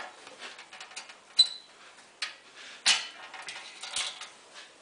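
A slotted flat-head screwdriver hooking and prying at the steel coil springs that hold a snowmobile exhaust on: small metallic clicks and scrapes, one sharp ringing click about a second and a half in, and louder metal rattles about three and four seconds in.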